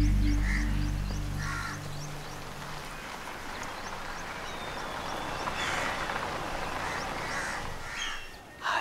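Crows cawing now and then over a steady outdoor hiss, with small birds giving short high chirps; a music score fades out over the first two seconds. A brief louder sound comes just before the end.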